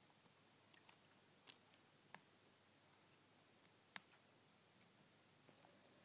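Near silence broken by a few faint, sharp clicks, the loudest about four seconds in: a small screwdriver working the screws in an iPhone 4's metal frame.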